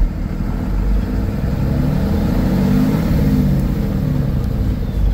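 Cummins 6.7-litre turbo diesel of a Freightliner M2 truck revved from idle. Its pitch rises about a second in and eases back down a little before the end.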